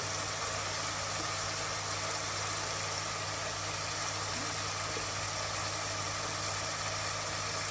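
Steady low hum with an even hiss over it, unchanging throughout: kitchen background noise while chicken and spices cook on the stove.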